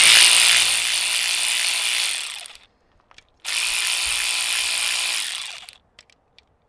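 ACDelco 3/8-inch brushed cordless electric ratchet running twice, spinning out 10 mm valve cover bolts; each run lasts about two and a half seconds. A few light clicks follow near the end.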